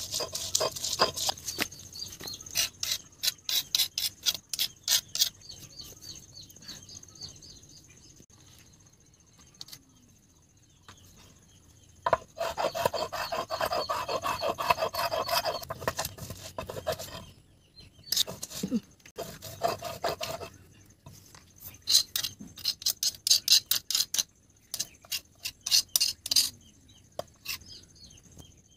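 Stone muller rubbed back and forth on a flat stone grinding slab (sil-batta), grinding a wet spice paste: runs of quick rasping strokes with short pauses, and a quieter stretch in the middle.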